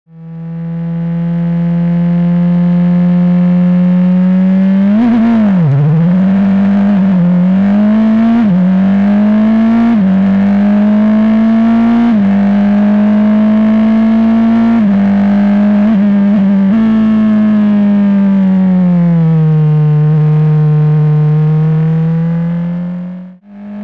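Open-wheel formula race car's engine heard from the cockpit, running at high revs. It fades in at the start, its pitch dips and climbs back about five seconds in, then steps down briefly several times as it changes gear. It settles lower for a couple of seconds and cuts out for a moment just before the end.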